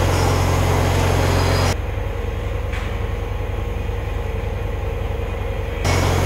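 Steady low machinery hum. It cuts abruptly to a quieter, thinner hum about two seconds in, then snaps back to the louder hum near the end.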